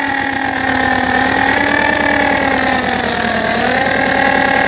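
A steady engine-like drone, its pitch wavering slowly up and down, with a fast fine rattle running through it: the vehicle sound that goes with a toy dumper truck being pushed along.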